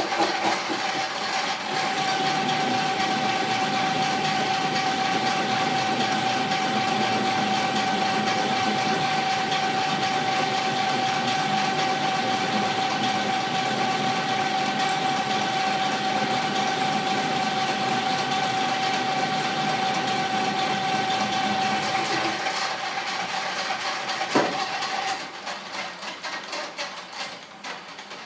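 Antique Rockford metal lathe running steadily under power with a constant gear whine. After about twenty seconds it shuts off and winds down, with a single clunk as it slows.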